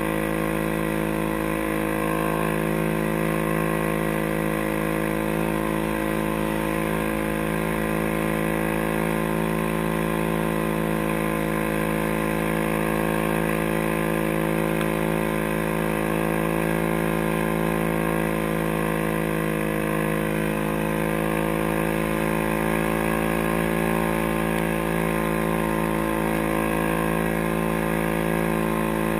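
ATV engine running at a steady cruising speed while riding over packed snow, holding an even note with a brief slight dip about two-thirds of the way through.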